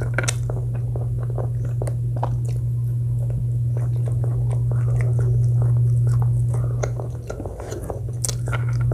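Close-miked eating: repeated bites and chewing with small moist clicks and crunches, over a steady low hum.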